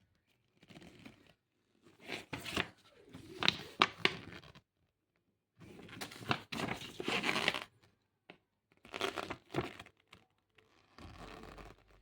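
Packaging being unwrapped, crinkling and tearing in three main bursts with a few sharp cracks.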